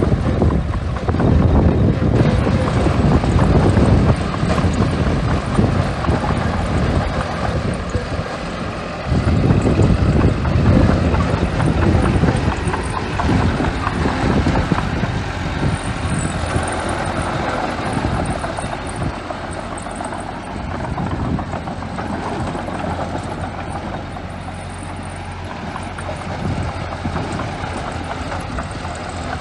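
Small bulldozer's diesel engine running under load while it pushes and spreads sand. The noise swells strongly in the first few seconds and again about nine seconds in, then settles into a lower, steadier run.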